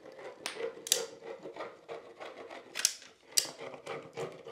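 Caulking gun being squeezed to lay a bead of construction adhesive, its trigger and plunger clicking sharply four times.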